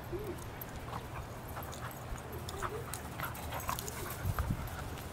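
A young Vizsla and a Border Collie play-fighting: a few short whines that rise and fall, over soft scuffling and small clicks as they tussle.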